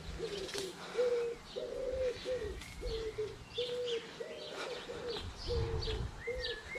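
Pigeon cooing in a steady run of short low notes, with smaller birds chirping higher above.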